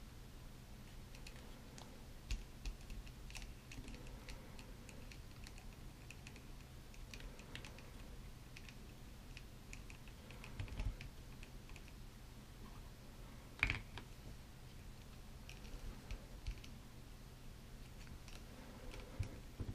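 Small, faint plastic clicks and taps as hands pose a plastic action figure and fit its parts, with one sharper click about 14 seconds in.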